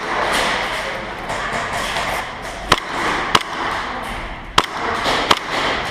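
Airsoft guns firing in an indoor arena: four sharp single cracks, the last three a little over a second apart, over a steady noisy din.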